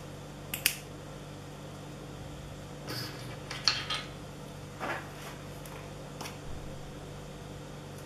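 Small plastic clicks and handling rustles of a micro-USB OTG adapter and USB flash drive being fitted together and picked up: one sharp click under a second in, a cluster of clicks and rustles around three to four seconds in, and a few lighter ones after. A steady low hum runs underneath.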